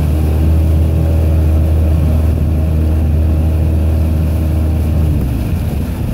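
Evinrude outboard motor running steadily under way, over the rush of wind and churning water. About five seconds in its steady tone drops away, leaving mostly wind and water noise.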